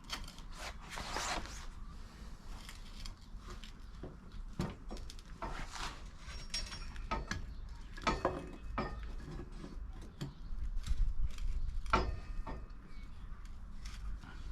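Scattered metallic clinks and knocks of a motorcycle's rear-wheel parts being handled as the wheel is fitted back into the swingarm, with louder clanks about eight and twelve seconds in.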